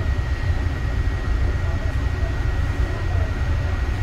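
Interior running noise of a Yongin EverLine light-rail car (Bombardier ART 200, linear-induction-motor driven) moving through a station: a steady low rumble of wheels on rails, with a faint constant high whine.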